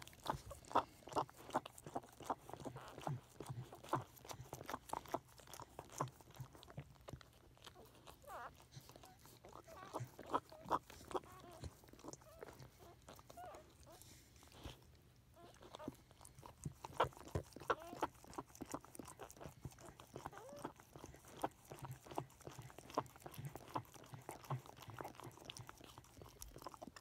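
Pembroke Welsh Corgi mother licking her newborn puppy: quick, irregular wet licking and mouthing smacks.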